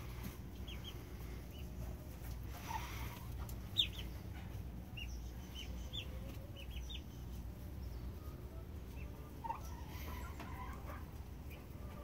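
Backyard poultry calling: a scattering of short, high chirps and a few clucks, one louder call about four seconds in, over a low steady rumble.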